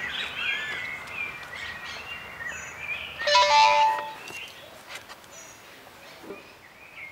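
Birds chirping, with a brief electronic ring tone from a mobile phone, a short run of stepped notes, about three seconds in.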